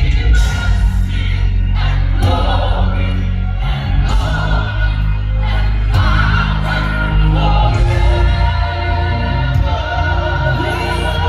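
Live gospel worship music: voices singing with a wavering vibrato over a band with a heavy, steady bass.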